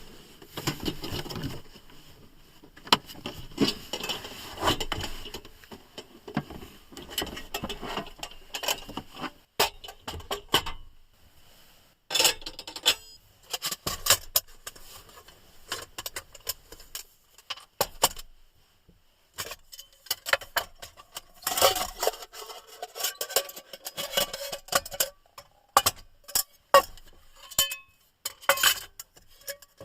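Camping gear being handled and set down: an irregular run of sharp knocks, clinks and rustles, with glassy clinks among them.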